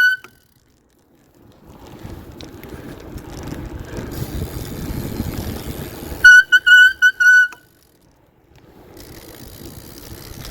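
BMX bike riding on the street, with tyre and wind noise building up. About six seconds in, the rim brake pads squeal loudly on braking, a high steady squeal broken into several short squeaks. The same squeal cuts off just at the start.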